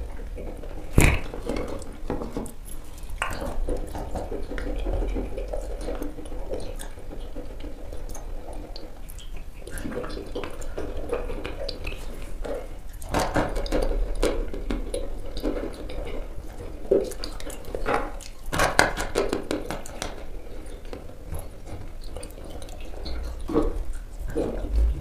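Wet, sticky mouth sounds of eating a thick grey chalk paste, mixed with a metal spoon scraping and clicking in a plastic bowl. Sharp clicks stand out about a second in, around thirteen seconds and several times around eighteen to nineteen seconds.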